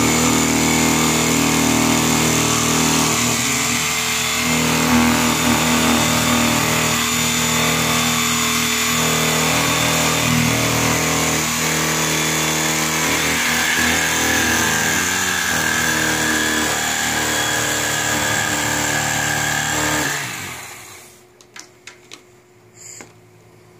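Corded electric knife's motor running steadily as its blade cuts into the case's foam, then switching off about twenty seconds in; a few light knocks follow.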